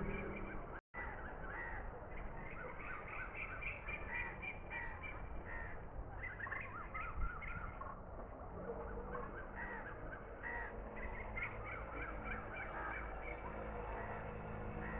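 Crows cawing over and over. A faint steady hum joins about halfway through, and the sound cuts out completely for an instant about a second in.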